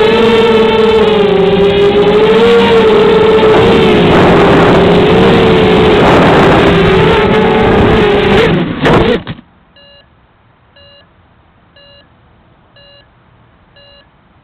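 QX200 quadcopter's electric motors and propellers whining loudly, the pitch wavering with the throttle, heard from the onboard camera. About nine seconds in the whine stutters and cuts off suddenly as the quad loses signal behind a tree and goes down. A faint beep then repeats about once a second.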